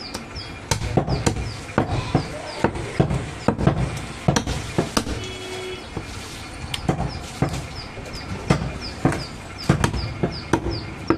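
A large butcher's knife chopping goat meat and bone on a wooden chopping block, in irregular blows about two to three a second. A faint high chirp repeats about twice a second in the background.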